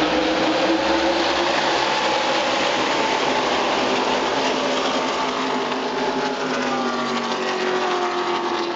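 A pack of NASCAR Camping World Truck Series race trucks' V8 engines running at full throttle as the field goes by, a dense wall of engine noise with many engine notes gliding down in pitch as the trucks pass. The field is accelerating away from the green flag at the start of the race.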